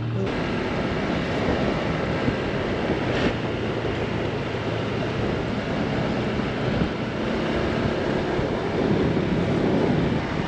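Steady rush of riding wind buffeting the microphone on a moving Honda Click 160 scooter, with the small single-cylinder engine and the road noise running underneath.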